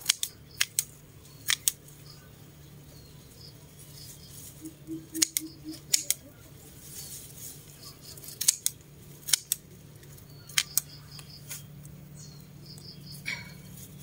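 Scissors snipping stems of Vietnamese coriander: sharp snips, often in quick pairs, coming irregularly every second or two.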